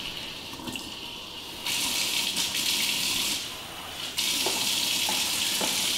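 Kitchen faucet running into a plastic food container, adding lukewarm water. The water gets louder about two seconds in, drops back for under a second, then runs loud again from about four seconds in.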